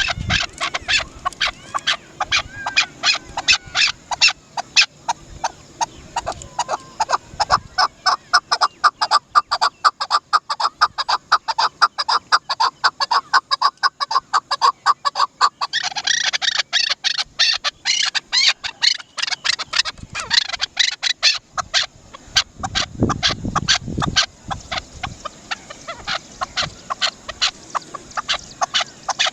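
Chukar partridge calling: a long, rapid series of short, sharp chuk notes repeated several times a second, rising into a higher, harsher stretch about halfway through.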